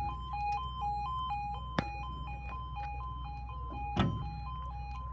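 UK level crossing warning alarm sounding a continuous two-tone warble, a lower and a higher note alternating a few times a second. Two sharp knocks come through, one about two seconds in and a louder one near four seconds.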